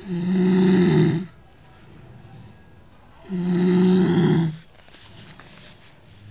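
A person snoring: two loud snores about three seconds apart, each a bit over a second long and held on one low pitch.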